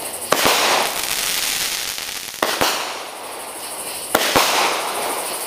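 Multi-shot consumer firework ("Party Time") firing flaming balls and reports. Three times, about two seconds apart, a pair of sharp bangs comes in quick succession, each followed by a fading hiss.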